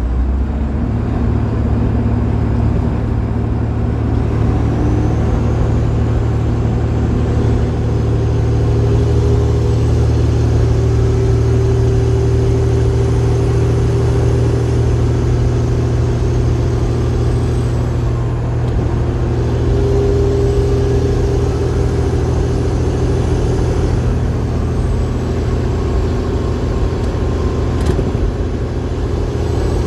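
Detroit Diesel Series 60 12.7-litre six-cylinder diesel running steadily under a heavy load of about 135,000 lb, a continuous deep drone that changes slightly about a second in and then holds steady.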